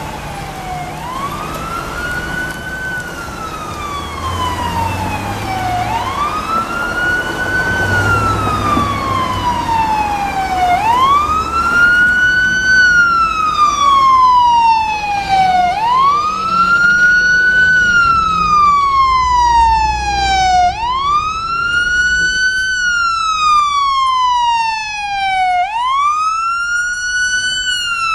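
Electronic siren of a fire department emergency vehicle sounding a wail. Each cycle rises quickly and then falls more slowly, about five seconds a cycle. It grows louder through the first half as the vehicle approaches, with low engine and traffic rumble underneath.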